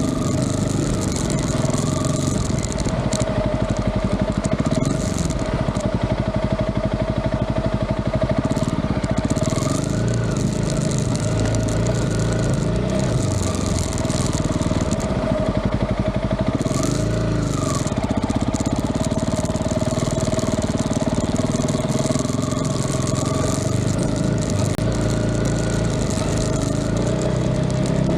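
An engine running steadily, its pitch rising and falling briefly about a third of the way in and again past the middle.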